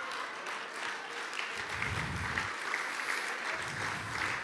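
Audience applauding, a steady even clapping that lasts throughout.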